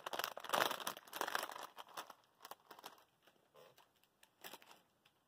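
Crinkly potato chip bag being handled and set down: dense crinkling for about three seconds, then thinning to a few faint rustles.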